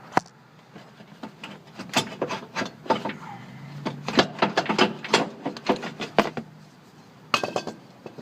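Metal knocks and clunks as an AC compressor is worked loose and wrestled out of its mount: a sharp knock just after the start, then a dense run of clattering knocks in the middle and a few more near the end.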